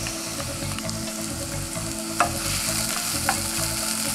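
Sliced onions frying in olive oil in a pot, a steady sizzle, stirred with a wooden spoon. Two sharp knocks come about two and three seconds in.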